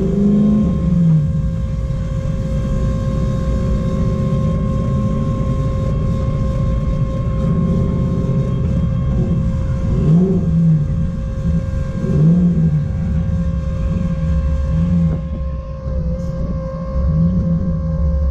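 Inside the cabin of a 1999 BMW 535i, its V8 revs climb and drop again and again as the car is driven sideways. A steady high whine runs under the engine throughout, from the electric pump that cools the limited-slip differential.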